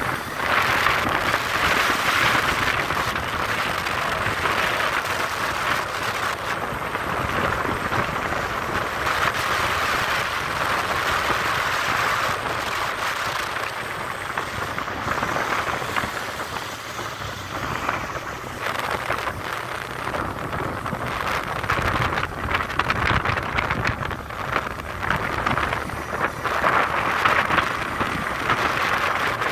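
Wind rushing over the microphone and road noise while riding a motorcycle at speed: a steady loud hiss that swells and eases a little, with no engine note standing out.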